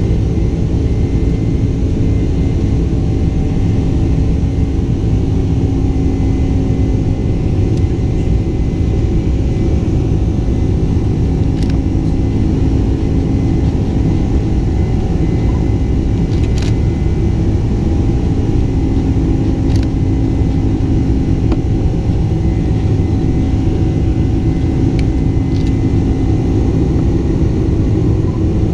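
Steady in-cabin noise of a Boeing 747-400 Combi climbing after takeoff: the deep rumble of its General Electric turbofans and the rush of air along the fuselage, with a steady hum underneath. A few faint clicks come through here and there.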